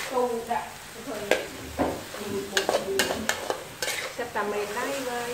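Metal spatula scraping and knocking against a metal wok while stir-frying long beans and pork, in quick, irregular strokes over the sizzle of hot oil.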